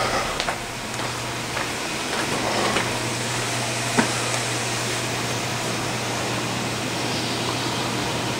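Steady room noise: an even hiss with a low hum under it, and a few light ticks, one sharper about four seconds in.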